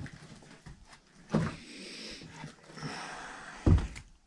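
Footsteps going down old wooden stairs whose treads feel soft underfoot, with a heavy thud about a second and a half in and a louder one near the end, and faint creaking of the wood between them.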